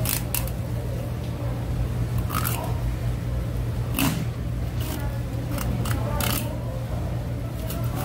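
A long fish knife slicing a black porgy fillet off along the backbone, with several short, sharp crunching clicks as the blade cuts through the small bones, over a steady low hum.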